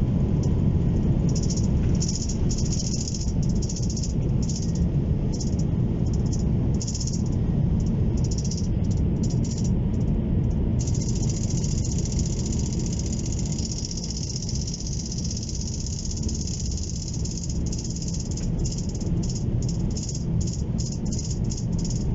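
Airbus A330-200 cabin during the takeoff roll and climb-out: the jet engines at takeoff thrust make a loud, steady low rumble. Fittings in the cabin rattle over it in quick, uneven bursts. The rumble eases slightly about two-thirds of the way through, as the aircraft leaves the ground.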